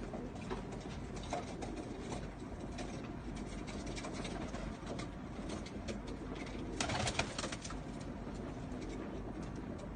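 A group of domestic pigeons cooing, with scattered small clicks and a brief louder rustle about seven seconds in.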